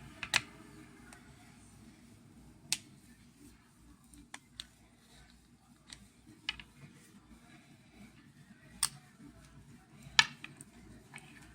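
Scattered sharp clicks and light taps, about ten at irregular intervals, the loudest near the start and again near the end, from small tools and plastic parts being handled while a Samsung Galaxy S6 smartphone is taken apart.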